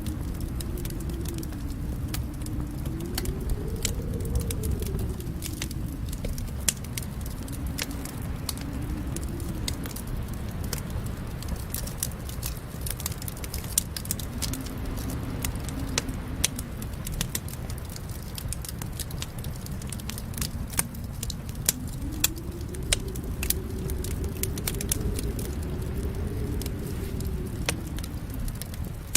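Wood fire crackling in a fireplace: frequent sharp pops and snaps over a low rumble, with a faint moan that slowly rises and falls.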